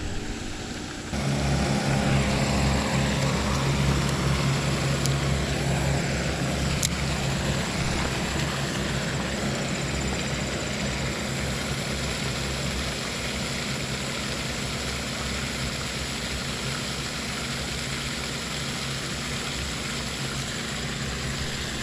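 Steady engine drone with a low hum, starting suddenly about a second in and slowly fading.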